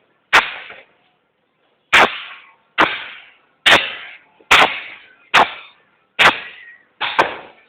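Fireworks going off: eight sharp bangs in a steady run, a little under a second apart, each trailing off with an echo.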